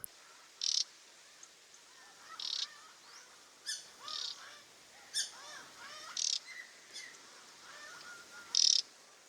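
Taiga flycatcher giving short, dry, rattling calls, about seven of them, loudest near the start and near the end. These are its non-breeding calls rather than song. Fainter chirping of other birds runs underneath.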